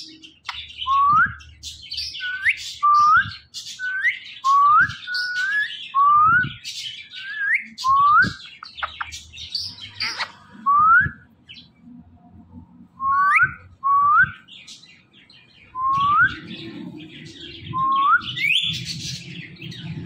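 Indian ringneck (rose-ringed) parakeet giving a short, rising call over and over, about one a second, pausing briefly about halfway through, with other chirps mixed in.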